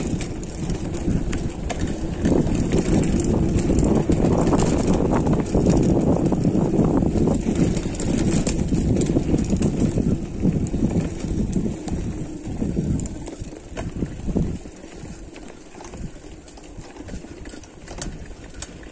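Mountain bike rolling fast down a dirt trail: a steady rumble of tyres on dirt, with scattered clicks and rattles from the bike. The rumble eases off about three-quarters of the way through.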